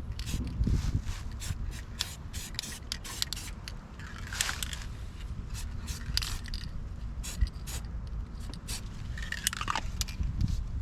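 Repeated sharp metal clicks and scrapes from hands-on repair work, over a steady low hum.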